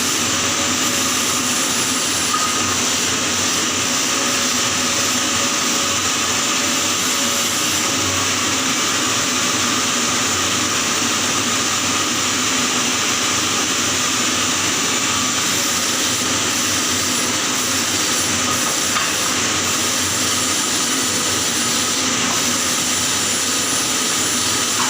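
Electric welding arc sizzling steadily, with no break.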